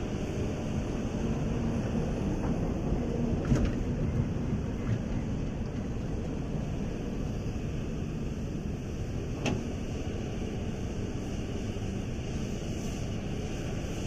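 Hitachi ZX350 hydraulic excavator's diesel engine running steadily under load while it loads an articulated dump truck, with two sharp knocks, one about three and a half seconds in and another near ten seconds in.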